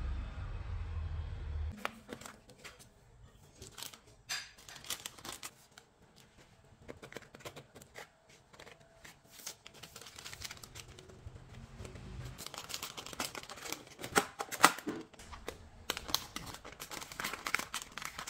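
Baking paper crinkling and rustling as it is peeled back, with scattered clicks and knocks of metal loaf tins being handled on the countertop. A low steady hum runs for the first two seconds or so, then stops.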